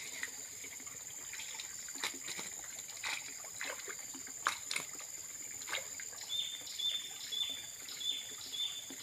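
Water splashing and dripping as a hoop net is lifted out of a muddy pond and handled, with scattered sudden splashes and knocks. From about six seconds in, a bird repeats a short high note about twice a second over a steady high-pitched drone.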